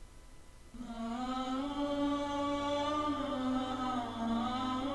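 A single voice chanting a slow, wordless-sounding melody in long held notes, entering about a second in: an Islamic nasheed. A faint steady low hum runs underneath.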